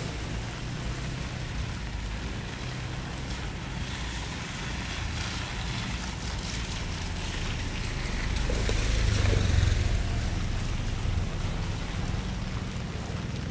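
Light drizzle falling, a steady hiss with scattered drop patter, over a low rumble that swells for a couple of seconds about eight seconds in.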